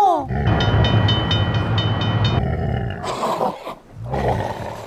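Big-cat roaring sound effects of lions and tigers, several roars in a row. Over the first two seconds or so a rapid rhythmic ringing runs with them, about five strokes a second.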